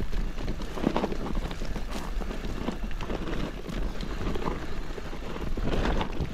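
Wind buffeting the microphone over a clatter of knocks and crunches from a mountain bike's tyres and frame on a rough, stony descent.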